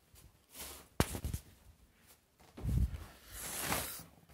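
Plastic bags being handled and rustled, with a sharp click about a second in and a dull thump just before a stretch of rustling.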